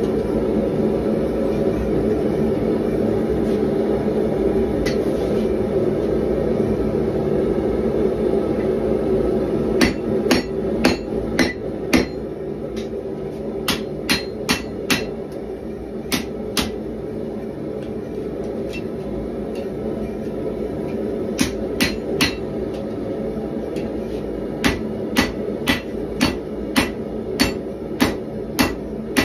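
Hand hammer striking a red-hot 1095 steel bar on an anvil to forge a knife blade. There are a few blows about ten seconds in, a pause, then a steady run of about two blows a second near the end. Under it runs the steady roar of a propane forge burner, loudest in the first third.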